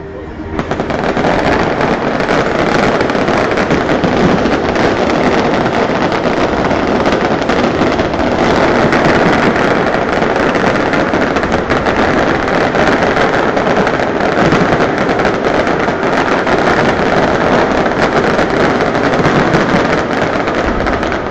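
Fireworks barrage: many shells and crackling stars bursting so close together that they merge into one continuous dense crackle, building about half a second in and falling away near the end.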